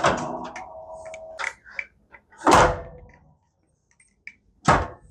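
Pull-down folding attic stairs being lowered: a creaking scrape with a ringing tone, then two loud thunks about two seconds apart as the ladder sections swing open and land.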